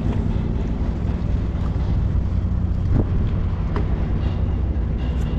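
Wind buffeting the microphone: a steady low rumble, with one sharp click about three seconds in.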